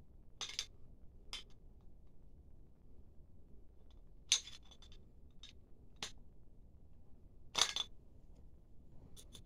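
Knife blade striking the cap and neck of a capped glass beer bottle, in an attempt to knock the cap off: a handful of sharp, irregular metal-on-glass clinks, the two loudest about four and seven and a half seconds in.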